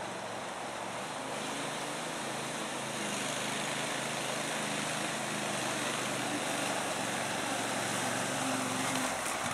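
Max IV 6x6 amphibious ATV's engine running steadily as the machine drives out of the water and across mud, growing gradually louder as it approaches.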